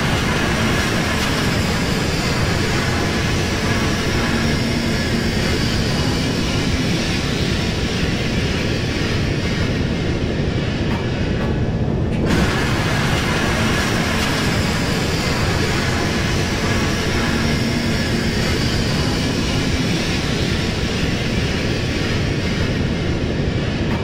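Sci-fi alien spaceship sound effect: a steady, dense rumbling drone with a low hum underneath and a faint high whine that slowly falls. The same pattern repeats about every twelve seconds.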